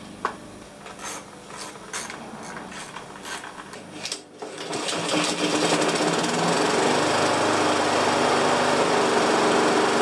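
A few clicks and knocks, then, about four seconds in, a Honda push mower's four-stroke engine is pull-started and catches, settling into a steady run. It runs not too badly, but with an idle that is a little off, which the mechanic puts down to something partly clogging the carburetor's main jet.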